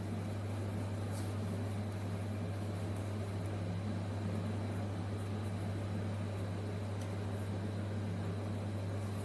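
Steady low hum with an even hiss behind it, unchanging throughout.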